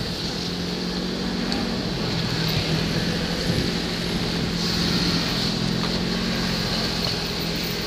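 A steady low engine hum, with a hiss swelling briefly about five seconds in.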